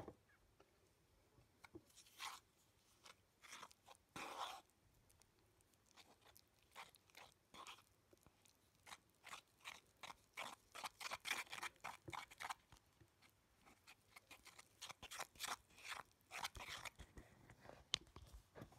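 A red spatula stirring and scraping a flour-like powder in a yellow plastic bowl: short, irregular scraping and crunching strokes, scattered at first and coming thick and fast from about halfway through.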